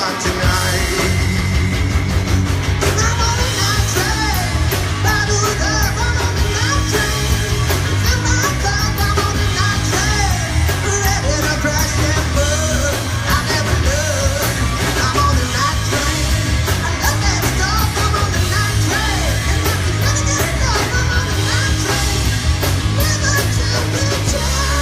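Rock band playing live and loud, with singing and yelled vocals over heavy bass and a steady drum beat.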